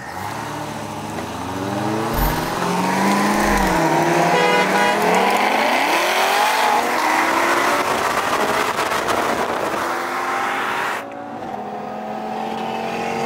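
Sports-car engines accelerating hard side by side in a roll race, among them a Corvette ZR1. The revs climb and drop again and again through the gear changes, with air rushing past. About eleven seconds in, the sound cuts abruptly to a quieter, steadier engine drone.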